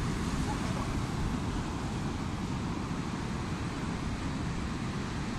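Wind buffeting the microphone over the steady wash of rough surf breaking on a breakwater.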